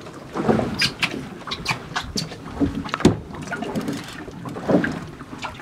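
Water slapping and splashing irregularly against the hull of a small boat at sea, with wind on the microphone.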